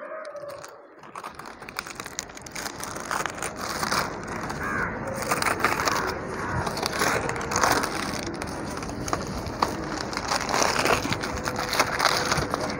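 Green plastic shade net rustling and crackling as it is handled and wrapped around a potted plant, a run of many small crinkling crackles that builds up about a second in.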